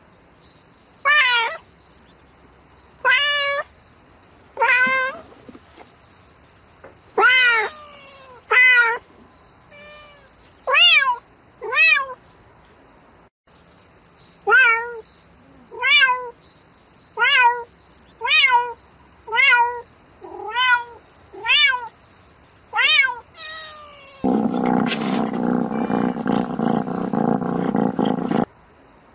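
Domestic cat meowing over and over, calling for a mate: about sixteen short meows, each bending up and then down in pitch, a second or two apart. Near the end a loud, steady noise with a low hum lasts about four seconds and cuts off abruptly.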